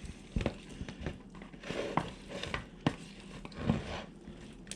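Chunks of salami, cheese and peppers in olive oil and vinegar being stirred in a bowl: irregular soft clicks and wet shuffling.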